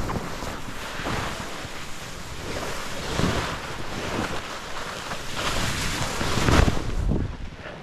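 Snowboard sliding through powder snow, a rushing hiss that swells and fades several times, with wind buffeting the microphone.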